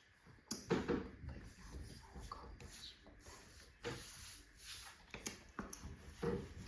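Scattered light knocks, clicks and rustling of things being handled, with short sharp taps about half a second in, near four seconds and near the end.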